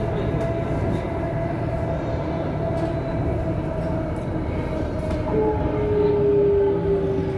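Delhi Metro train running along an elevated track, heard from inside the carriage: a steady rumble with a motor whine that slowly drops in pitch. A second, lower whine joins about five seconds in, along with a few faint clicks.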